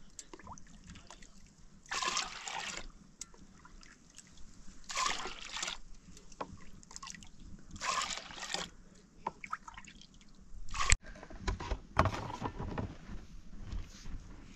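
Milk poured from a metal bowl into a metal pot, three pours about three seconds apart, each splashing for under a second. Near the end a sharp clank as the bowl is set down, then brief rustling.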